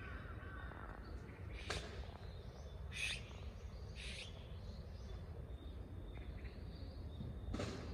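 Azure-winged magpies giving four short, scattered calls over a steady low background rumble.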